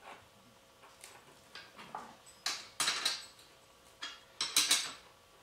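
Wrench clinking against the casters' metal mounting bolts as they are tightened onto the camera stand: a few short, sharp metallic clinks, the loudest about halfway through and again near the end.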